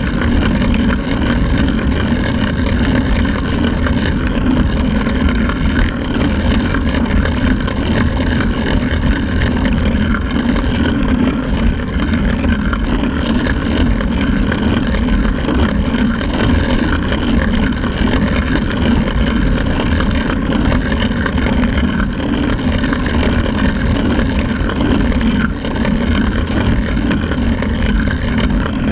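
Steady low rush of wind buffeting the microphone of a handlebar-mounted camera on a road bike riding at speed on asphalt.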